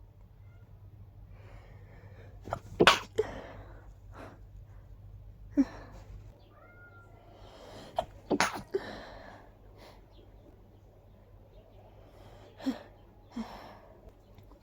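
A person's sneezing fit: a run of loud sneezes, the biggest about three seconds in and another burst of two or three around eight seconds, with smaller sneezes between and two more near the end, and breaths in between.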